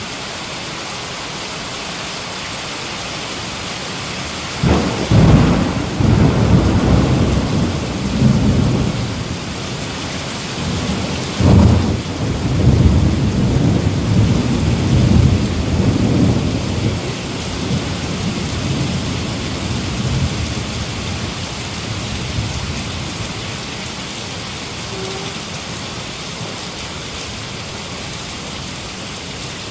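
Heavy rain falling steadily, with two claps of thunder about five and eleven seconds in, each rumbling on for several seconds before fading back under the rain.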